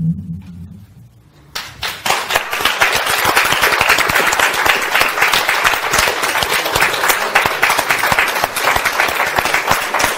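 The last note of the song fades away, then audience applause breaks out about a second and a half in and goes on steadily.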